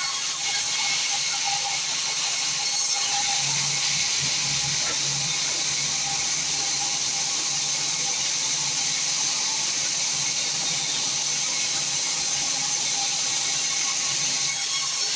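Sawmill saw running steadily: a continuous high hiss over a faint steady hum, with no break or change.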